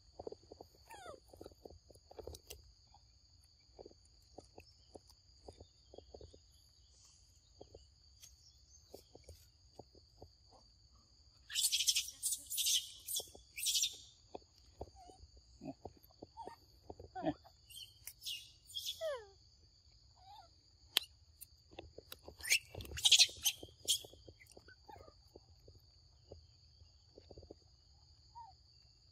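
Steady insect drone in two high, even tones, over scattered soft clicks and crackles. Louder harsh, hissy bursts come at about twelve seconds in and again about twenty-three seconds in.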